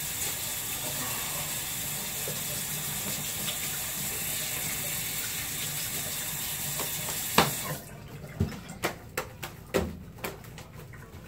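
Water running steadily from a tap into a sink, cut off suddenly about eight seconds in; after it, a string of sharp pops and clicks from fluffy slime being squeezed and stretched in the hands.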